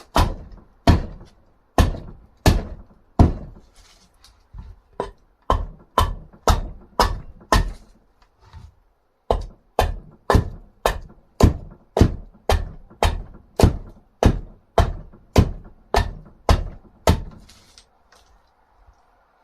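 Steady, rhythmic chopping blows into dried wood, about two a second, as a blade hews an axe-handle blank into shape. There is a short pause just past the middle, and the blows stop shortly before the end.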